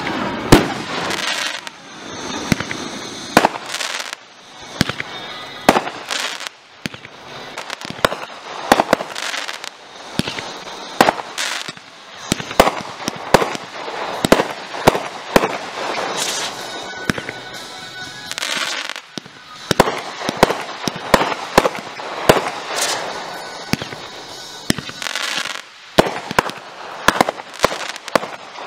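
Aerial fireworks going off in quick succession: a long run of sharp bangs, at times several a second, with crackling and hissing between them and a few brief lulls.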